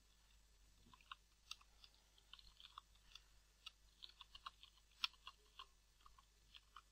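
Faint typing on a computer keyboard: quiet, irregular keystroke clicks, several a second, starting about a second in.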